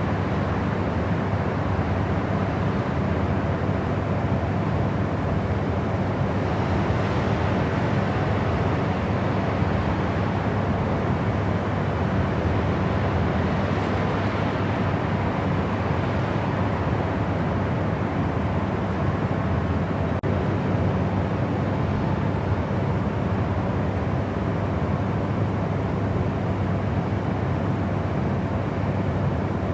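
Steady white-noise sleep sound: an even, unbroken rush weighted toward the low end, with a deep rumble under it.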